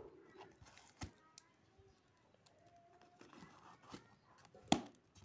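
Hands struggling to open a cardboard package: scattered knocks, clicks and rustling of the box and its wrapping, with a loud knock about a second in and the loudest one near the end.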